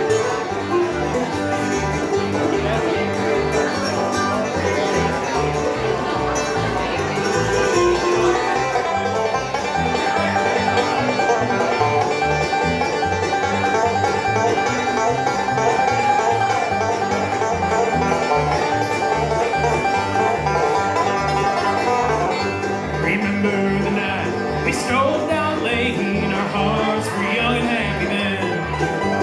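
Bluegrass band playing: banjo, mandolin and acoustic guitar picking over an upright bass that plucks a steady beat.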